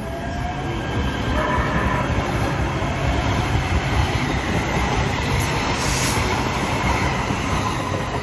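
Kinkisharyo P3010 light rail train rolling past close by at low speed: steady wheel-on-rail rumble with a faint electric motor whine that shifts in pitch. It grows louder over the first few seconds, then holds.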